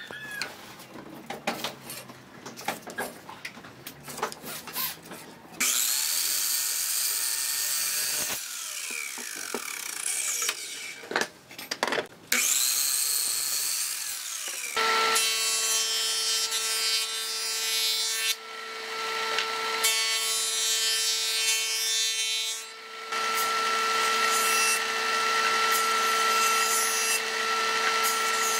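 Light knocks of a metal square and pencil on a wooden board, then a sliding miter saw cutting through pine twice, its motor whine falling as the blade slows after each cut. From about fifteen seconds in, a combination jointer-planer runs with a steady high whine while a board is passed over its cutterhead, dipping briefly between passes.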